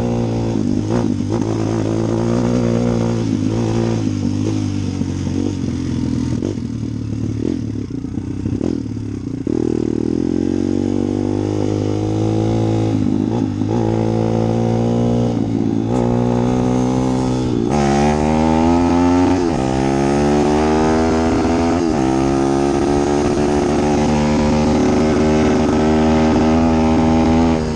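An engine running and being revved, its pitch rising and falling repeatedly, with sharper rising revs about two-thirds of the way through.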